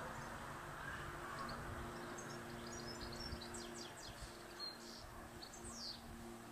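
A bee buzzing with a steady low hum as it strains at a nail blocking its nest hole in the brick wall. Birds chirp in short high calls through the middle.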